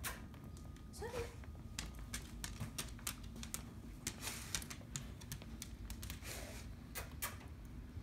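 A dog walking about, her steps making irregular light clicks and ticks.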